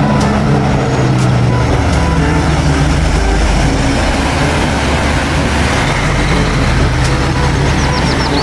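Diesel engine of a cab-over semi-trailer truck running steadily as it drives past on a wet road, with tyre noise.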